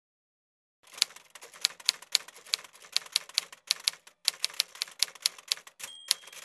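Manual typewriter sound effect: irregular key strikes clacking as a title is typed out, then a short bell ring near the end as a new, noisier rush begins.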